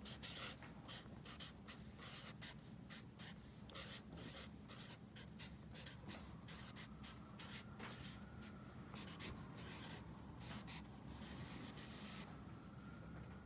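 Felt tip of a Sharpie marker rubbing across sketchbook paper in quick, irregular strokes as large block letters are written; the strokes stop near the end.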